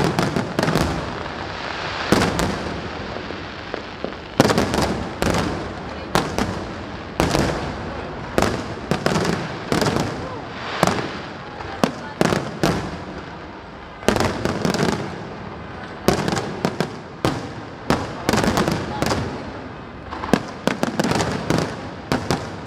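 Fireworks display going off in a rapid barrage: sharp bangs come one after another throughout, often several a second, each trailing off quickly.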